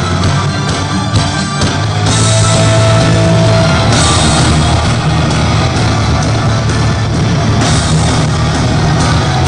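Live symphonic metal band playing loud, with distorted guitars, a heavy low end and drums, heard from within the audience. Cymbal crashes come in about two seconds in, again at four seconds and near the end.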